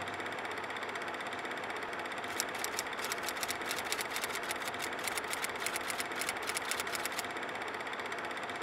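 Rapid typewriter-style key clicks, several a second, that start about two seconds in and stop about a second before the end, over a steady hiss: a typing sound effect for text being typed out on screen.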